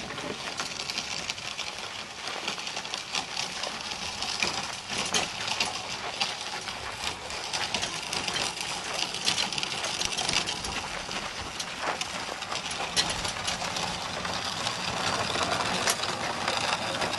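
Small-wheeled snowmobile trailer loaded with an aircraft fuselage being rolled by hand over gravel: steady crunching with many small clicks and rattles.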